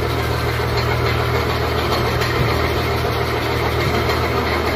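A steady mechanical drone: a low hum under an even hiss, from a motor running close by.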